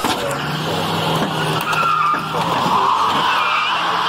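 Car tyres squealing and skidding on pavement with the engine running hard under load, as a car spins its wheels to force its way out. The squeal wavers in pitch throughout.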